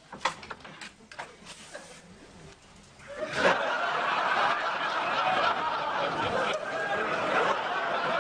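Studio audience laughing, breaking out about three seconds in and carrying on steadily; before that, a few small clicks and knocks.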